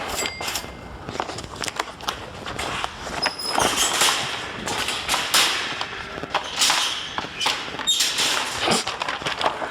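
Rustling and irregular knocks and thuds of cardboard firework boxes and a shopping cart being handled.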